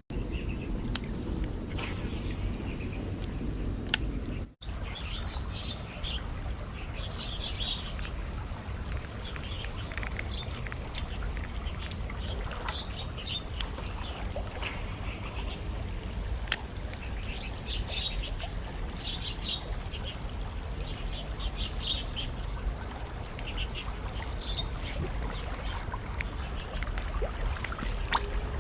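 Small birds chirping in short repeated bursts over steady outdoor background noise, with the sound cutting out completely for a moment about four and a half seconds in.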